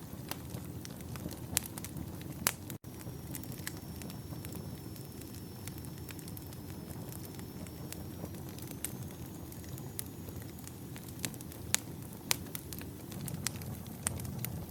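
Campfire of wood logs burning, with a steady low rush of flame and irregular sharp crackles and pops from the firewood, a few of them louder. A faint, thin, high whistle holds for several seconds in the middle.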